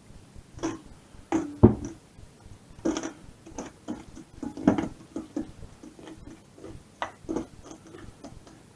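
Irregular taps and knocks of kitchen items being handled on a worktop, about a dozen spread over several seconds, the sharpest a solid knock a little under two seconds in.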